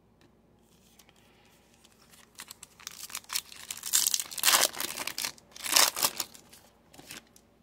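Foil wrapper of a sealed trading-card pack crinkling and being torn open by hand: a couple of quiet seconds, then a run of crackly rips and crinkles, loudest in the middle and again about a second before the end.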